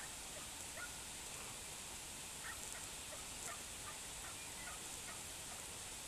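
Faint short bird calls, scattered about once or twice a second, over a steady hiss of outdoor ambience.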